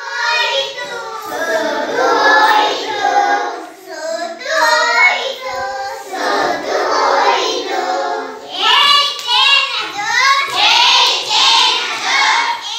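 A group of young children singing together in chorus, an action song sung as they move in a circle.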